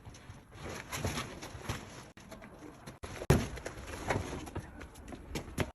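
Irregular knocks and taps of things being handled, with one sharp loud knock a little over three seconds in.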